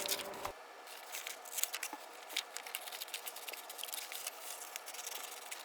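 Faint scratching and small ticks of a pencil and drafting tools on paper, with a few slightly louder clicks.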